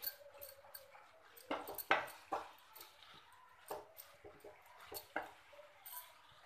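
Wooden spatula stirring a thick mixture of grated carrots and mawa in a non-stick kadhai: irregular soft scrapes and light knocks against the pan.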